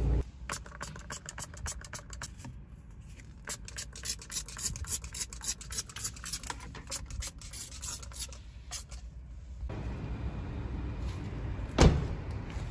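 Scratchy rubbing and clicking of a phone being handled against its microphone, then a single loud thud near the end, as of a car door being shut.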